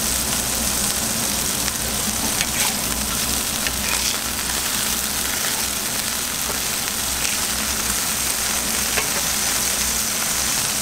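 Burger patties sizzling in grease on a hot flat-top griddle: a steady frying hiss with a few small pops.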